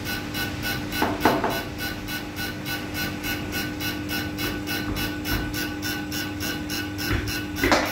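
Diesel test bench running with a high-pressure pump under test: a steady mechanical hum with one held tone and a fast, even pulsing. Two brief, louder surges come through, about a second in and near the end.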